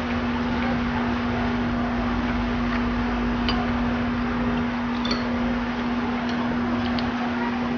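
Steady whirring hum and hiss with a constant low tone, like an electric fan, under a few faint clicks of eating and spoon on bowl.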